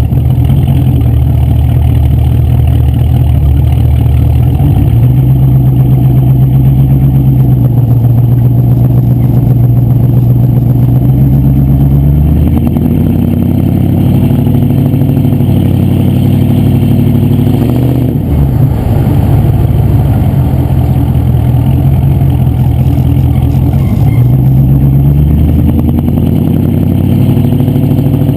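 Range Rover P38's 4.6-litre V8 engine running loud, its revs stepping up and holding, then dropping, several times over.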